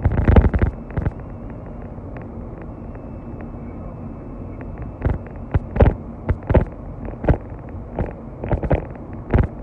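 Steady road and engine noise inside a moving car, with a low hum. Irregular loud thumps and knocks come through it, a cluster right at the start and several more between about five and nine and a half seconds in.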